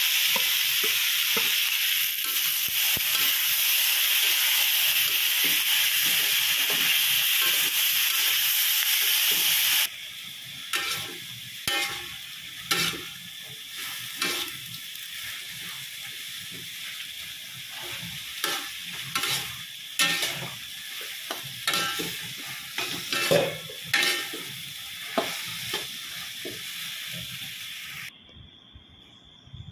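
Sliced bitter gourd and chilli stir-frying in a steel wok: a loud, even sizzle for about the first ten seconds. Then a quieter sizzle with a metal spatula scraping and knocking against the wok at irregular intervals.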